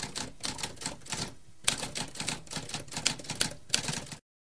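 Typewriter keys clattering in rapid keystrokes, with a short pause about one and a half seconds in; the typing cuts off abruptly about four seconds in, leaving silence.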